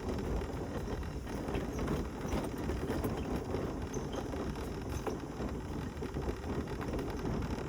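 Mobility scooter rolling along a bumpy lane: a steady low rumble from the tyres and frame, with many small rattles and knocks.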